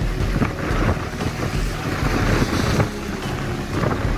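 Wind buffeting the microphone in gusts over the rush and splash of water along the hull of a sailing yacht under way in choppy sea.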